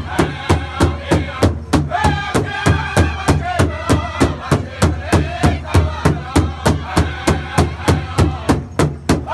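Powwow drum group: several men striking one large hide-headed drum in a fast, even beat while singing together.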